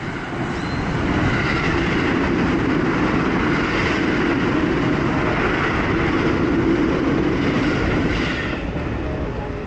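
Keio Line electric commuter train passing close by on the rails. Its noise swells about a second in, holds steady for several seconds, then fades near the end as the last cars go by.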